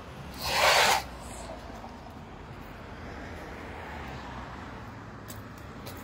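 A short rasping rustle, about half a second long near the start, as the black bag holding the caught milkfish is handled. After it comes a steady low rumble of background traffic.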